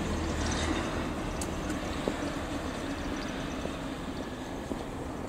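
Steady low rumble and road noise of a moving vehicle, with a few faint clicks.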